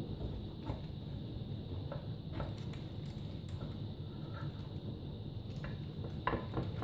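A knife cutting through soft baked poppy-seed buns in a glass baking dish lined with baking paper, with faint crackling and a few light clicks of the blade, the sharpest clicks near the end. A steady low hum runs underneath.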